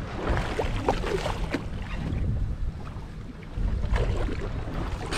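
Wind on the microphone and water sloshing around a sport-fishing boat at sea, a steady low rumble, with a few short splashes in the first second and a half.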